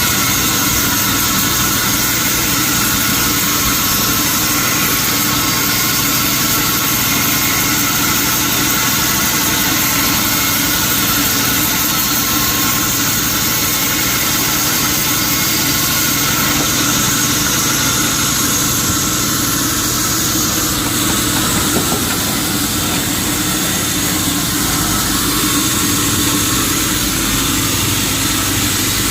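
Sawmill machinery running steadily while milling a teak log: a continuous engine-like drone with a high whine above it, holding an even level.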